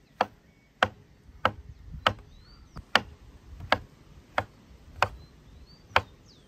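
Kitchen knife slicing shiitake mushrooms on a cutting board: about nine sharp, evenly paced knocks of the blade meeting the board, roughly one every two-thirds of a second.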